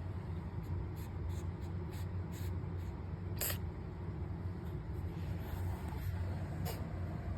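A cat sneezing: several faint short snorts in the first three seconds, one sharp sneeze about three and a half seconds in, and a smaller one near the end, over a steady low hum.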